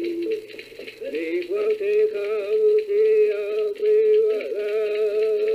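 A man singing a traditional Passamaquoddy song, unaccompanied. A held note breaks off just after the start; about a second in, the voice slides up into another long, wavering held note.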